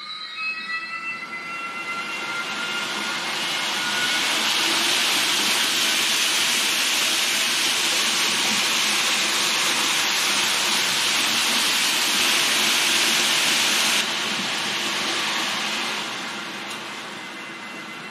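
H0 model train (Roco Taurus locomotive with sound decoder and its tank wagons) running, with a few rising whining tones at first, then a loud steady rushing hiss that builds over a few seconds, drops off suddenly about 14 seconds in and then fades.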